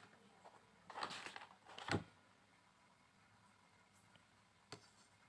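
Handling noises on a desk as a plastic ruler is brought in and laid down: a short scrape about a second in, a knock just before two seconds, and a light tap near the end.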